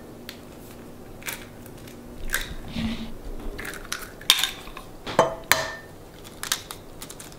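Hen's eggs being cracked open by hand over a ceramic mixing bowl: a scattering of short, sharp shell cracks and clicks, the loudest a little after four seconds and around five seconds in.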